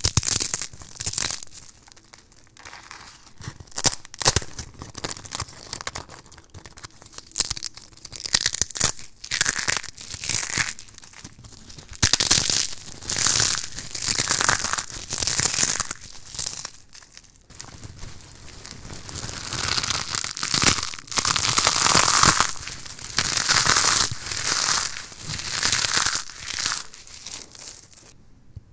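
Crispy dried soap slices crumbled and crushed between the fingers: dense, irregular crackling and crunching that comes in handfuls. It grows louder and busier in the second half and stops suddenly near the end.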